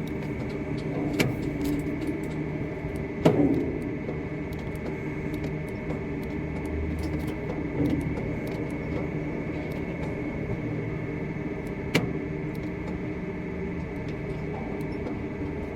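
Steady machinery hum with a constant high whine running under it, broken by a few sharp clicks or knocks: about a second in, about three seconds in, and once more about twelve seconds in.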